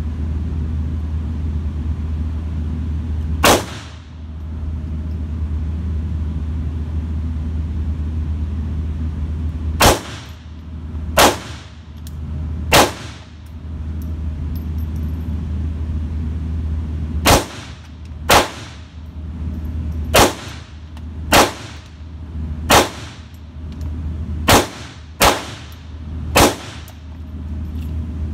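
Twelve pistol shots fired at an indoor range, each a sharp crack with a short echo tail: a single shot, then three spaced about a second and a half apart, then eight in quicker succession near the end. A steady low hum runs underneath.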